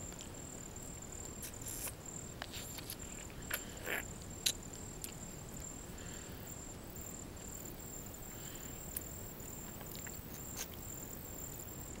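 A steady, high-pitched insect trill in the grassland, with a few short faint clicks and rustles now and then.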